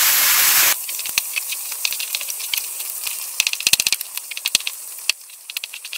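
A frying pan's sizzle cuts off abruptly under a second in. After that a kitchen knife clicks sharply against a plastic cutting board as cooked chicken breast is chopped into small pieces, the clicks coming in quick runs, with a faint hiss behind them.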